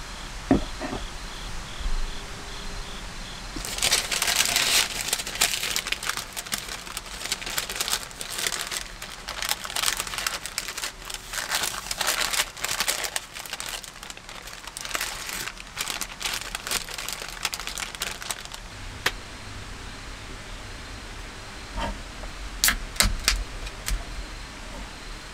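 Sheet of paper crinkling and rustling as a sausage sandwich is wrapped in it, a long stretch of dense crackle. Near the end come a few sharp clicks from a drink can being handled.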